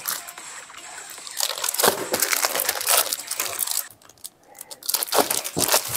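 Plastic packaging crinkling and crackling as it is handled, with a short lull about four seconds in.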